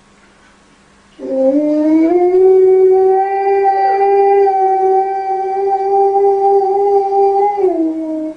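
Husky-type dog howling: one long howl starting about a second in, rising briefly in pitch and then held steady for about six seconds, dipping just before it stops near the end.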